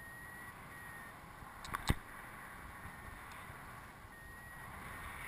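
Wind rushing over the camera microphone in tandem paraglider flight, a steady rush with a fluttering low rumble. Two sharp clicks sound close together about two seconds in.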